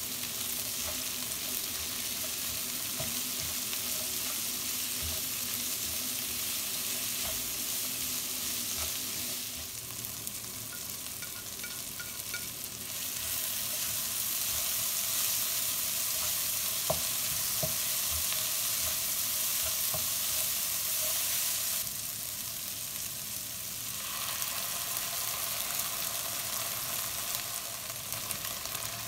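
Chopped vegetables sizzling in hot oil in a non-stick frying pan while a spatula stirs and scrapes them, with a few light taps of the spatula on the pan. The sizzle eases briefly twice.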